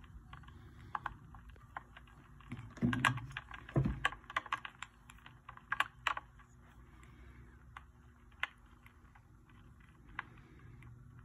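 Scattered sharp clicks and taps on a fiberglass bass boat, from the angler's footwork and gear on the casting deck. Two dull thumps about three and four seconds in are the loudest sounds. The clicks are busiest in the first half and run over a faint steady low hum.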